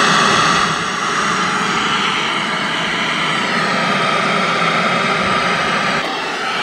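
Loud, steady hiss of static from the 1975 Sony Trinitron KV1712's speaker, the set tuned to no station, dipping slightly near the end.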